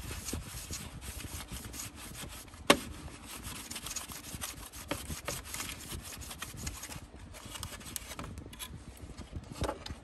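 Blue shop towel, dampened with isopropyl alcohol, rubbing back and forth over the clear plastic of a Shark Navigator vacuum's nozzle housing in quick scratchy strokes, wiping off dirt. One sharp knock about three seconds in, and the rubbing thins out near the end.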